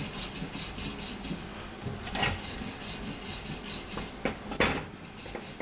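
Flux-core wire-feed welding arc crackling and sputtering steadily while a bead is laid, with a few sharper pops near the end.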